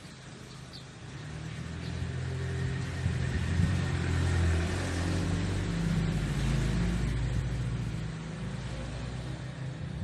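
A motor vehicle's engine passing by: a low rumble that grows louder from about a second in, is loudest in the middle and fades toward the end.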